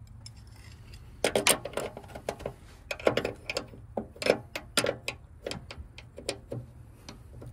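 Steel wrenches clinking and clicking against a rusted hydraulic hose fitting as they are set onto it to break it loose. A run of sharp metallic ticks starts about a second in, over a low steady hum.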